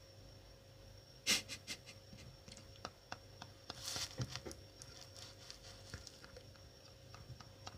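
A man doubled over in held-in, mostly silent laughter: breathy pants with scattered small clicks and knocks, the first click about a second in the loudest, over a faint steady hum.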